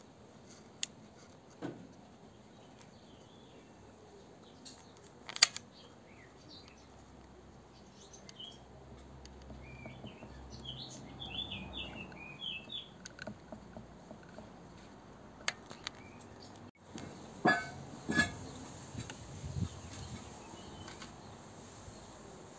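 Quiet background with a few sharp handling clicks and knocks, the loudest about five seconds in and a couple more near the end, and a bird chirping in short bursts for a few seconds near the middle.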